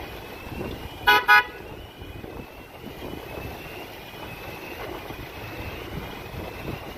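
Steady sandstorm wind blowing, with a car horn beeping twice in quick succession about a second in.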